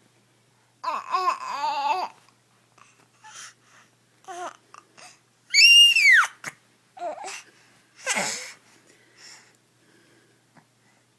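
Babies babbling and cooing in short wordless bursts, with a loud high squeal about five and a half seconds in that rises and then falls, then a breathy squeal.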